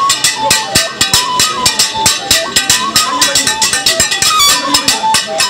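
Background music with plucked guitar-like strings over a quick, steady beat.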